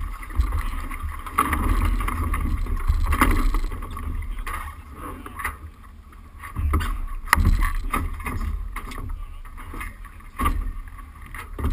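Wind buffeting the microphone and water splashing along a sailboat's hull, with a few sharp knocks at irregular moments.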